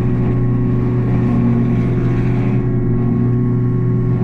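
Takeuchi TB285 excavator's diesel engine running steadily at working speed, driving the hydraulic Blue Diamond severe duty rotary cutter as it works in heavy brush, heard from inside the cab. A steady hum with a little extra hiss in the middle.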